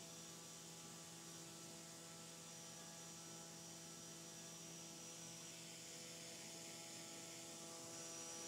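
Faint, steady hum of a drone-scale propeller and its brushless motor running at a constant speed of about 5,000 RPM on a thrust test stand. A thin high whine sits above it.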